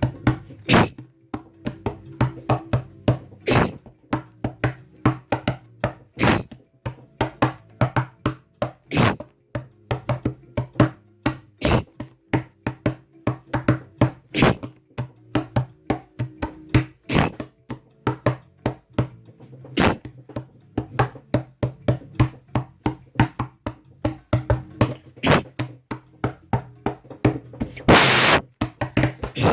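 Homemade percussive sound effects: a long run of quick knocks, taps and thwacks in an uneven rhythm over a faint steady hum, with one longer hissing burst near the end.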